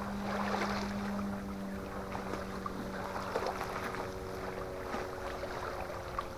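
Motorboat engine droning steadily out on the lake, a low hum that eases off a little after the first couple of seconds, with small crackles from a campfire.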